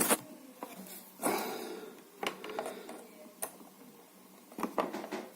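Handling noise of a USB cable being unplugged and plugged back into a docking station: a few scattered clicks and knocks, with a brief rustle a little over a second in.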